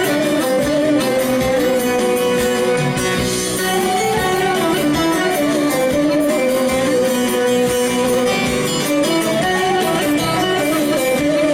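Instrumental passage of live Turkish folk music, led by plucked string instruments playing an ornamented melody over a steady accompaniment.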